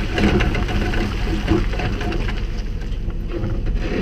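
Tyres and small caster wheels of a homemade snowmobile dolly rolling over gravel while it is towed, a steady crackling, crunching rattle over a low rumble.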